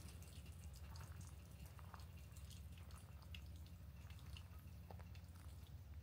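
Near silence: a steady low background hum with faint, irregular small ticks and clicks scattered through it.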